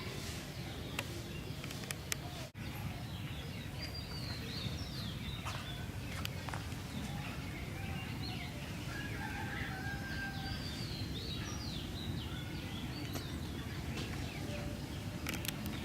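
Birds chirping and calling, many short falling chirps with a few longer held calls, over a steady low outdoor rumble; the sound drops out for an instant about two and a half seconds in.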